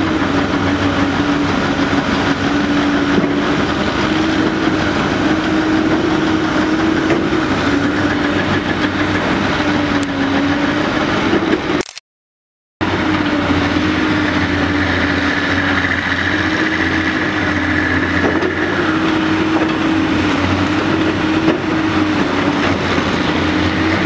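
Caterpillar 385BL excavator's large diesel engine running steadily under hydraulic load, its pitch wavering slightly up and down as it works the boom and bucket. The sound breaks off completely for under a second about halfway.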